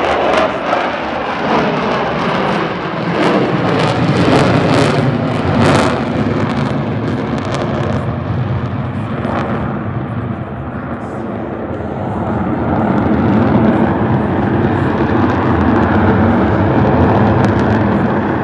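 Jet engines of a formation of military jets passing overhead, a loud rushing noise that swells about two-thirds of the way through and begins to fade near the end.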